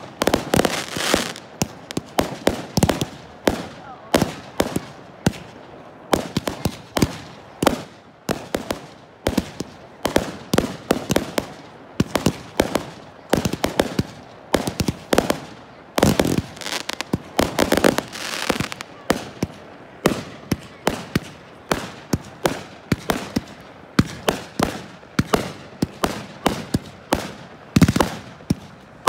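Fireworks display: aerial shells bursting in a rapid, uneven barrage of sharp bangs, several a second.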